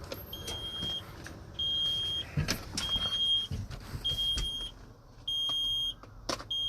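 A truck's cab warning alarm beeping steadily, a short high beep about every second, with scattered clicks and knocks from movement around the cab.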